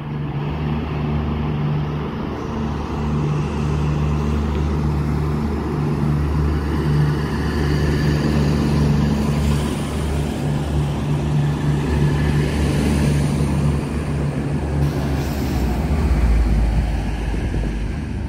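V/Line VLocity diesel multiple unit passing along the platform, its underfloor diesel engines running with a steady low drone. The rumble grows deeper and louder about fifteen seconds in as the end car with its engine comes close.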